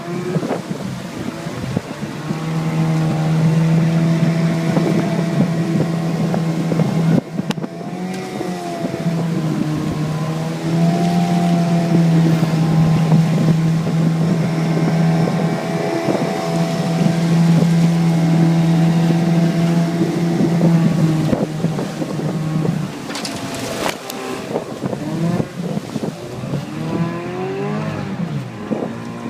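Mariner 15 horsepower outboard motor pushing a jon boat, running steadily at speed. Its pitch drops and climbs back several times as the throttle is eased and opened again, wavering most near the end.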